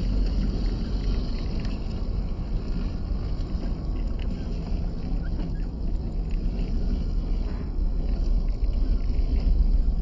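A 1/12-scale WPL C34 RC crawler's small electric motor and gearbox running steadily, with small ticks of its tyres on rock and a low rumble of wind on the microphone.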